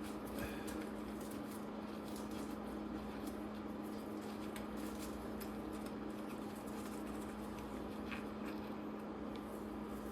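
Faint scattered clicks and light taps of small engine bolts being handled, over a steady low hum.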